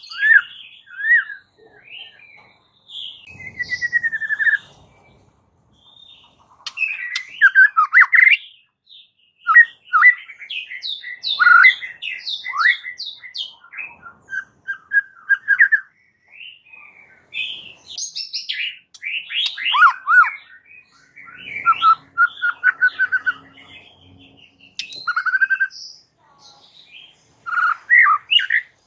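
White-rumped shama singing in full voice: a fast string of varied whistled phrases, sliding up and down, with a couple of short pauses between runs.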